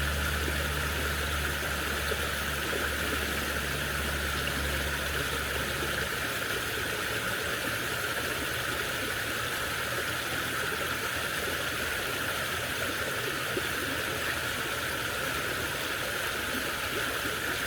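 Stream water flowing and rushing steadily. A low, steady mechanical hum lies under it for the first six seconds or so, then fades away.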